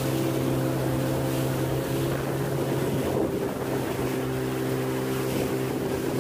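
Outboard motor of an aluminium fishing boat running steadily under way, a constant hum with wind and water rushing past. About halfway through, the hum briefly blurs into a surge of water and wind noise before settling again.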